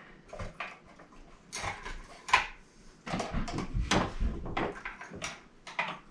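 Irregular small clicks and taps of chandelier parts being handled: wire and hanging pieces being fitted onto the fixture's metal frame. One sharper knock comes a little over two seconds in, and the tapping gets busier in the second half.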